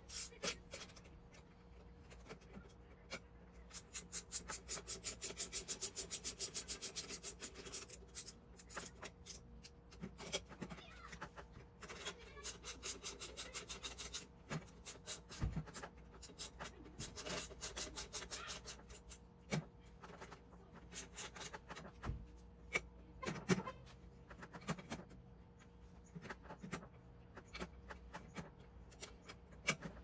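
Hand tools working on a bicycle rear wheel's axle hardware: several runs of rapid, even clicking with scattered single knocks and scraping as the wheel is fitted and tightened into the frame.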